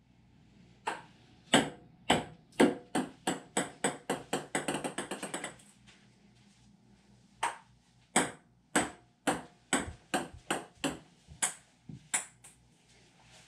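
Table tennis ball bouncing on a hard surface: sharp pings that come faster and faster until they run into a short rattle as the ball settles. After a pause of about two seconds, a second run of bounces follows, again speeding up.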